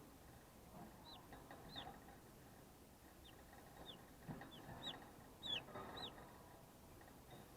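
Broiler chicks about twelve days old peeping: about ten short, high chirps that fall in pitch, scattered from about a second in to about six seconds in, with faint rustling beneath.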